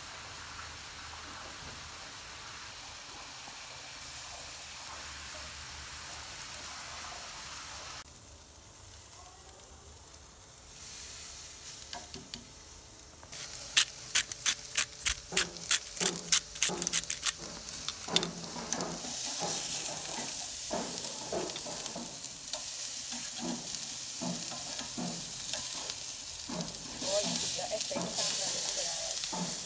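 Raw steaks sizzling on a hot grill grate, louder in the second half. About halfway through comes a fast run of sharp clicks from metal tongs, with more scattered clicks later.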